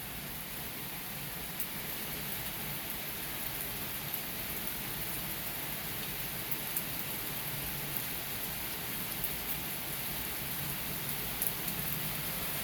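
Steady rain falling, an even hiss of drops hitting the ground, with a few faint ticks of single drops.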